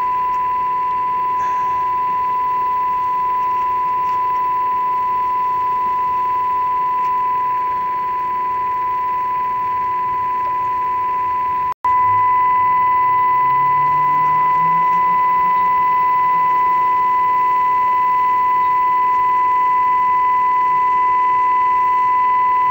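Steady 1 kHz audio test tone from a video pattern generator, held unbroken except for a dropout of an instant about halfway through.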